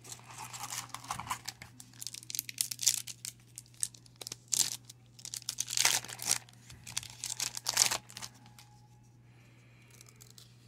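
Metallic foil wrapper of a 1996 Pinnacle baseball card pack crinkling and tearing as it is pulled open by hand, in a quick run of sharp crackles. The crackling stops about eight seconds in.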